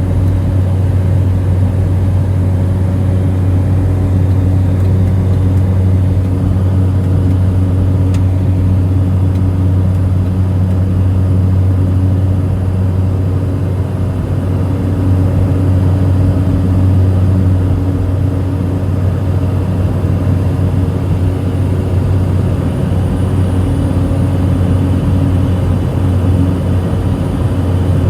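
Cessna 208 Caravan's single Pratt & Whitney PT6A turboprop engine and propeller running with a steady, deep drone.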